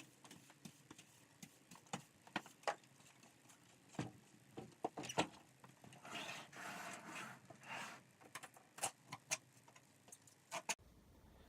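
Scattered light taps and clicks from handling, with a stretch of rustling about six seconds in: packaging being handled during an unboxing.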